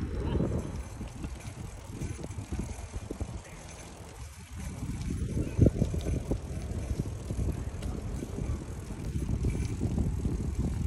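Wind buffeting the microphone over the rumble of a mountain bike being ridden over paving, with one sharp knock a little past halfway.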